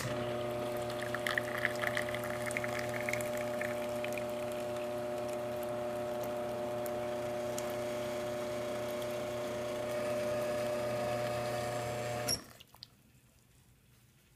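Rotary pump of a Quickmill Vetrano 2B dual-boiler espresso machine running, a steady hum with water rushing through the group. It switches off abruptly about twelve seconds in.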